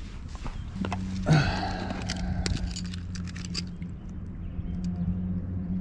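Handling noise: scattered clicks and light rattles as a fish and a handheld digital fish scale are handled. Under it, a steady low hum sets in about a second in and runs on.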